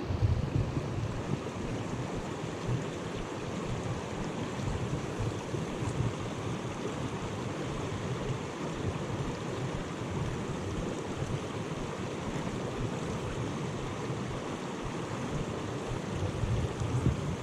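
Mountain stream water rushing steadily over rocks and plunge pools, a continuous even wash of sound, with a couple of louder low rumbles near the start and near the end.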